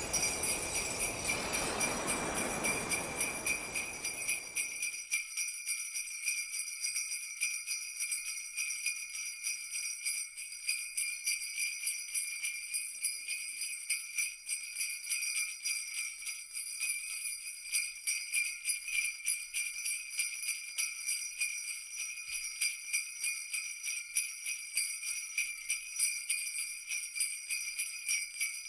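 Sleigh bells jingling in a continuous, rapid, even shake with a bright high ring. A lower rushing noise fades out over the first five seconds.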